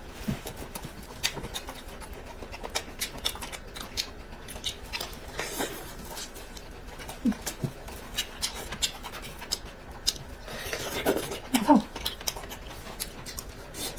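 Close-miked eating: chewing with many sharp wet mouth clicks and smacks. There are a few short murmured vocal sounds about seven seconds in and again near the end.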